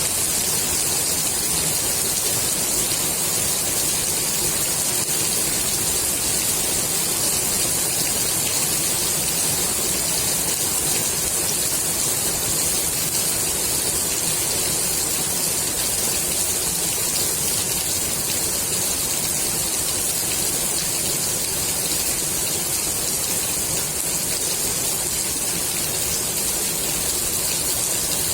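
Steady rain falling on the water of a swimming pool: a dense, even hiss of drops.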